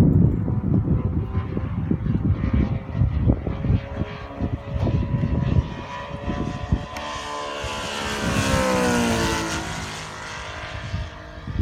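The twin Saito FG-90R3 three-cylinder radial engines of a radio-controlled F7F Tigercat model flying past. Their engine and propeller sound swells about seven seconds in, then drops in pitch and fades as the plane passes. An uneven low rumble fills the first half.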